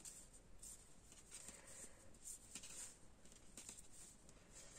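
Very faint rustling and light brushes of knitting needles working wool yarn, a few soft strokes as stitches are knitted.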